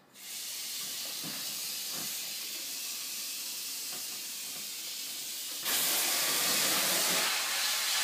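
Water from a kitchen tap's pull-out spray head running into a stainless steel sink: it turns on at the start as a steady hiss, then gets louder and hissier about two-thirds of the way in as the flow changes from a stream to a fine spray.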